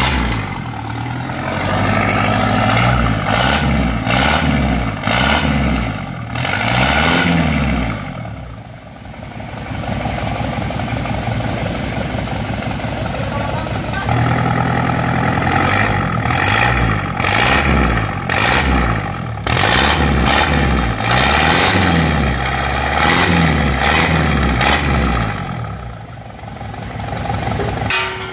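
Daihatsu Taft Rocky's diesel engine revved up and down again and again through a newly fitted aftermarket racing exhaust with a chrome tip, dropping back briefly twice between runs of revs.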